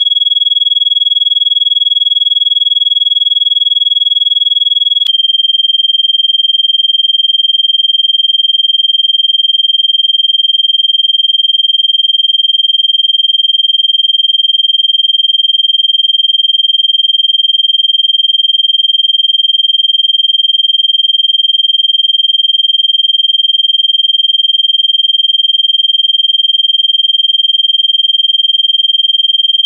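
Steady electronic sine tones of a Rife frequency track: a loud high-pitched tone with a fainter lower tone beneath it. About five seconds in, both tones switch abruptly to a new pitch, the high one slightly lower and the low one higher, and then hold steady.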